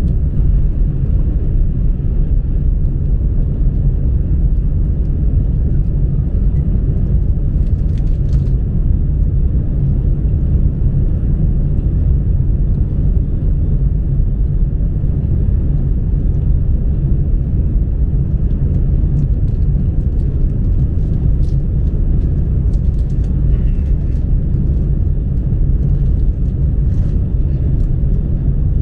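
Steady low rumble of a high-speed train running at speed, heard inside the passenger cabin, with a few faint clicks.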